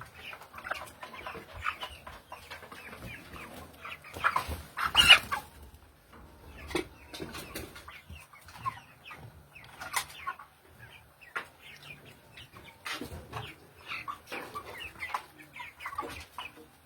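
Broiler chickens clucking and calling without pause in many short overlapping calls, with one louder burst about four to five seconds in.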